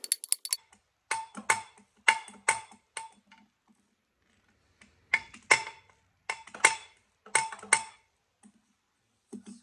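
Ratchet wrench clicking on the flywheel bolts: sharp metallic ticks with a short ring, coming in pairs and small groups, with a pause of about a second and a half in the middle.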